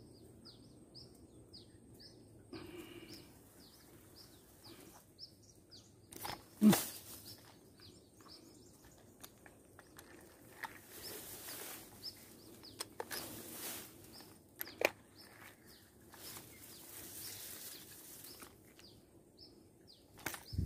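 A small bird repeatedly giving short, high, downward chirps, about two a second, over quiet outdoor background. A sharp knock about a third of the way through is the loudest sound, with another lighter one later and a few brief bursts of rustling.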